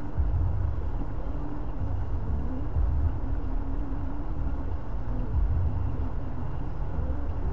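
Car engine and road noise: a steady low rumble with a faint wavering hum, as the car moves slowly in heavy traffic.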